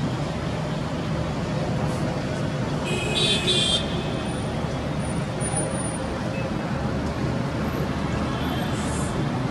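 Dust-storm wind blowing steadily, mixed with city traffic noise. A short high-pitched tone, like a distant horn toot, sounds about three seconds in.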